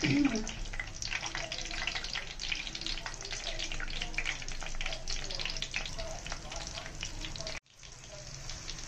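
Breaded stuffed green chillies sizzling in hot frying oil: a dense, steady crackle of small pops. It cuts out for a moment near the end, then resumes.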